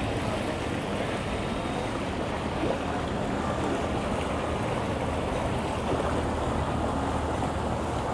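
Outboard boat motor idling, a steady low hum under a wash of wind and water noise.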